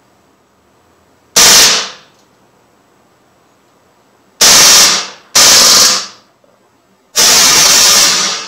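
Umarex Legends M712 CO2 blowback BB pistol firing on full auto in four short bursts, each a rapid string of shots; the first three last about half a second and the last, near the end, about a second. Each light tap on the trigger lets out a string of several BBs.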